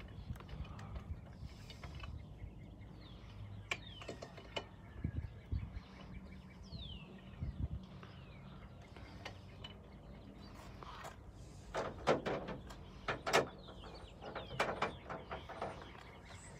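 Socket ratchet clicking in short runs as lug nuts that have already been loosened are turned off a pickup truck wheel. The densest runs of clicks come about twelve and fourteen seconds in.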